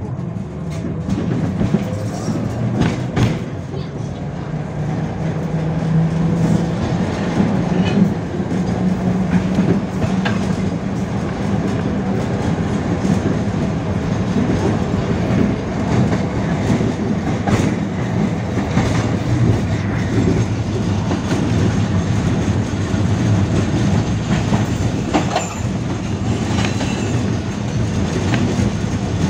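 71-605 (KTM-5) tram in motion, its traction motors humming over a steady running rumble, with the wheels knocking and clacking over rail joints now and then.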